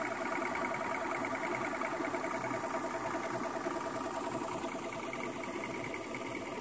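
Small boat motor running steadily, a fast, even mechanical whirr with a thin high whine over it.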